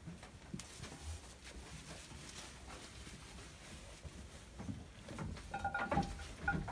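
Goats moving about and feeding at a wooden hay manger: soft rustling and small knocks, busier and louder near the end, with a brief high squeak.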